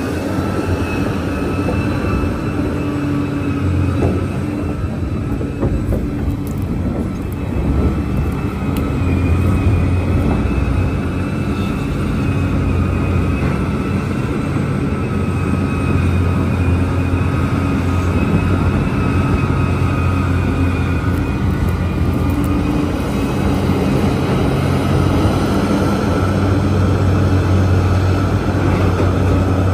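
Large Liebherr mining excavator running: a heavy engine drone with a steady high whine over it, swelling and easing a little as it works.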